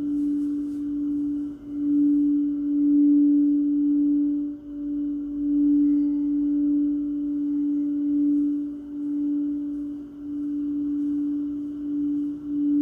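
Singing bowl ringing with one sustained tone, its loudness swelling and easing every second or two.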